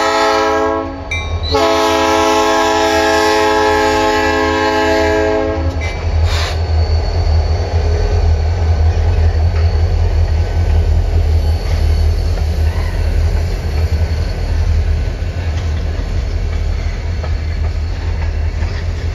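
Diesel freight locomotive's air horn sounding a chord. One blast ends about a second in, and a long second blast follows and stops about six seconds in. Then the freight train rolls past with a steady low rumble as tank cars and covered hoppers go by.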